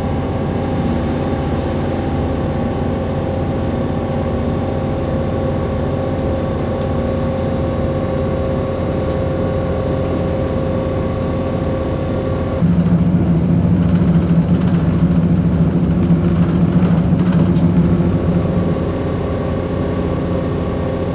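Steady running noise heard from inside a passenger train carriage: a hum with a few fixed tones over a rumble. A little over halfway through it becomes louder, with a deeper hum and some crackle, for several seconds, then settles back.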